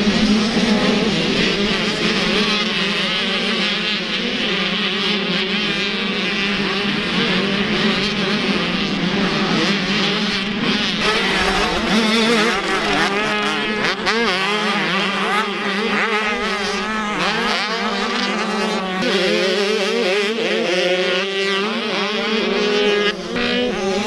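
Pack of 85cc two-stroke motocross bikes racing, several engines overlapping and revving up and down as the riders shift and get on and off the throttle.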